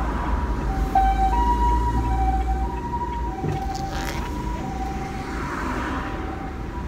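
Japanese ambulance's two-tone siren alternating steadily between a high and a low note (pii-poo, pii-poo), heard from inside a car's cabin over the low rumble of the engine and road.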